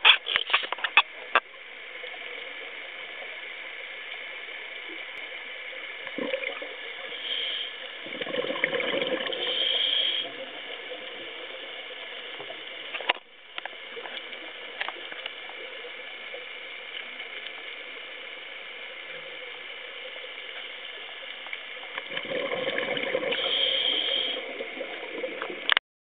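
Underwater scuba regulator breathing: two rushes of exhaled bubbles, one about eight seconds in and another near the end, over a steady hiss of water. A few sharp clicks at the start.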